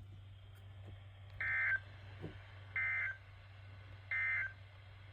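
NOAA Weather Radio SAME end-of-message code: three short bursts of digital data tones, about a second and a half apart, marking the close of the weekly test broadcast.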